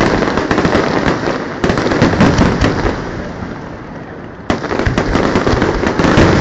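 Fireworks display: a dense run of rapid crackling bangs over a low booming rumble. It thins out in the middle, then a fresh volley starts suddenly about four and a half seconds in.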